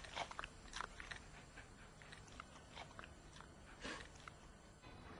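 Puppy chewing, faint irregular clicks and mouth smacks, with a slightly louder one about four seconds in.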